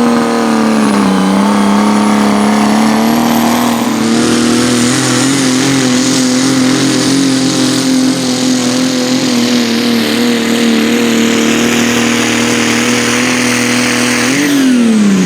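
Competition pulling tractor's engine held at full throttle under heavy load as it drags the weight sled, running at high, nearly steady revs with a thin high whine over it. Near the end the revs flare up briefly and then drop away as the throttle comes off.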